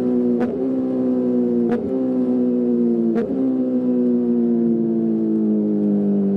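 Kawasaki ZX-25R 250cc inline-four engine running at high revs through a DX Generation Pro Race aftermarket exhaust. Its pitch falls slowly and steadily, and three short sharp pops cut in during the first half.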